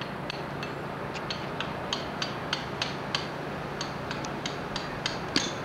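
A stone carver's hammer striking a chisel on carved stone, sharp taps at about three a second over a steady low hum.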